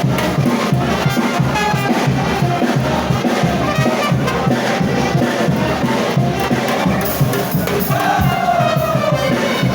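Frevo music with brass and a steady drum beat, over the noise of a large crowd.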